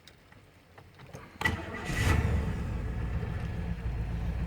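The 1999 Chevrolet Suburban's V8 cranks and catches about a second and a half in, then settles into a steady idle. It runs smoothly with no misfire, now that the bent cylinder 4 prong on the spider injector has been straightened.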